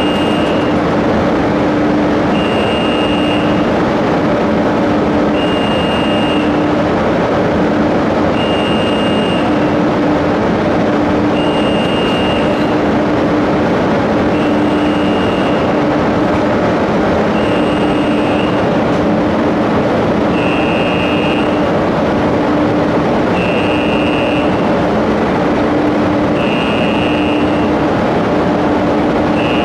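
Calbrandt High Dog railcar indexer running as it pushes a hopper car along the rail: a steady mechanical drone, with a short high warning beep about every three seconds.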